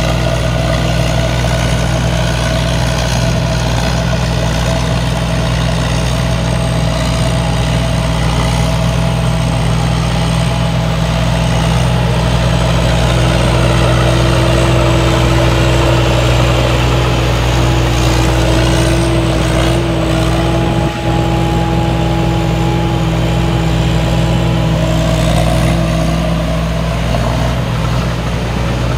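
Rice combine harvester running steadily under load as it cuts and threshes, engine and machinery with a dense mechanical din. A thin steady tone joins about halfway through and fades near the end.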